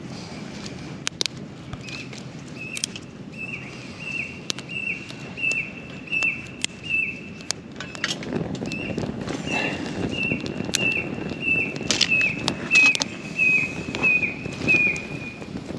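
A bird calling a long series of short, quickly repeated notes that each drop in pitch, about one and a half a second, in two runs with a pause between. Sharp clicks and a low rustle run beneath, the rustle louder in the second run.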